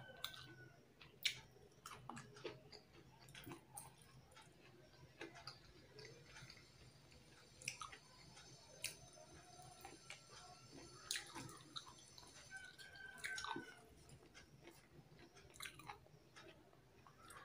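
Faint eating sounds from someone eating rice and fish curry by hand: chewing with small wet smacks, and fingers mixing rice against a steel plate, giving scattered soft clicks over a faint low hum.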